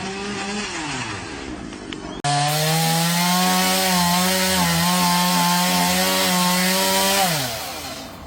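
Two-stroke chainsaw held at high revs, cutting into wood for about five seconds with a slight wavering under load. Near the end the throttle is released and the revs fall away. Before that, a shorter chainsaw note also drops off as its throttle is let go.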